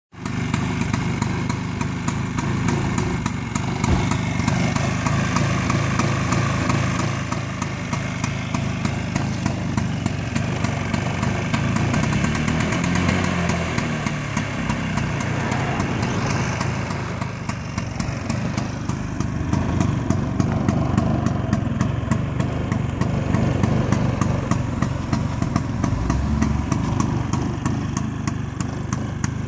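1964 Vespa 150 VBB2T scooter's single-cylinder two-stroke engine idling steadily on its stand.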